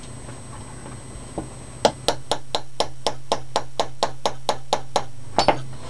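Hammer striking a makeshift punch to drive the bolt catch roll pin into an AR-15 lower receiver: one light tap, then a quick run of about a dozen sharp metallic strikes, about four a second, ending with two close taps.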